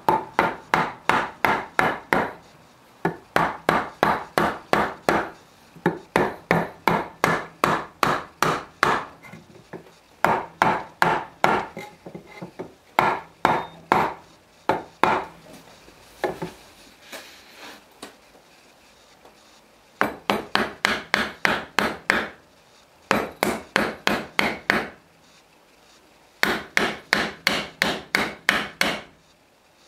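A hand tool worked back and forth along the edge of recycled pine boards clamped in a bench vise, in quick rhythmic strokes of about five a second. The strokes come in runs of about two seconds with short pauses, and a longer lull around the middle.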